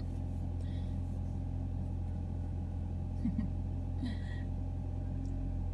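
A steady low mechanical hum, with a few faint brief chirps about three and four seconds in.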